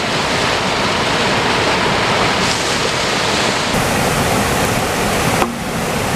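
A little waterfall and its rapids: river water pouring over a low rock ledge and rushing over rocks, a loud, steady rush.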